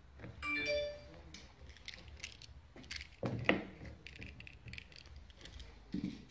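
A short electronic tone about half a second in, then a series of clicks and knocks, the loudest about three and a half seconds in, from a car door handle being tried while the car stays locked: keyless entry is blocked because the key tag has no battery.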